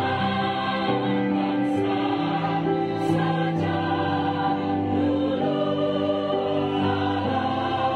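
Mixed choir of women and men singing in harmony, holding long notes that change every second or so.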